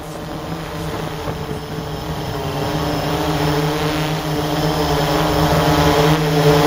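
Hexacopter's electric motors and propellers humming steadily, growing louder; its props are out of balance and need balancing, by the owner's account.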